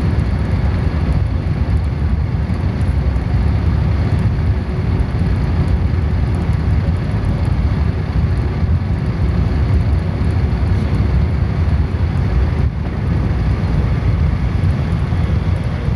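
Steady low rumble of a passenger train running at speed, the wheels and running gear heard from inside the carriage.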